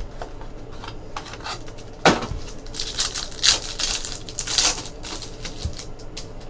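A cardboard trading-card box is handled, then a foil trading-card pack crinkles and tears open in a run of crackling bursts from about two to five seconds in.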